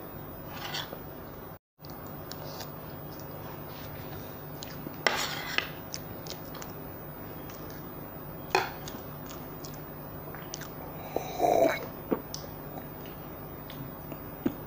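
Eating at a table: quiet chewing, with a metal fork clinking and scraping on a plastic tray. There are sharp clicks about five and eight and a half seconds in, and a longer scrape near the end, over a steady low hum.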